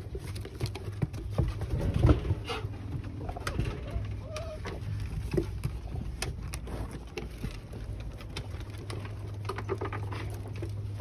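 Five-week-old German Shepherd–Husky mix puppies playing on a wooden deck: scattered clicks and taps of paws and claws on the boards and of toys being mouthed and dragged, with a few short low calls.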